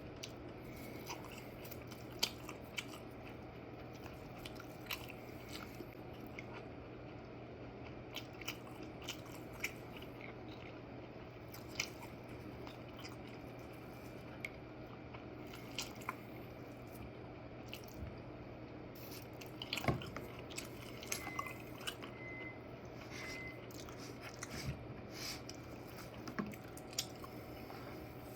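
A person biting and chewing toast, with scattered small crunches and clicks, over a steady low hum.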